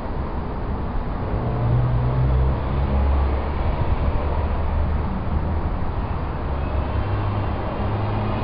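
Low, steady rumble of a motor vehicle engine running, with a low hum that shifts slightly in pitch.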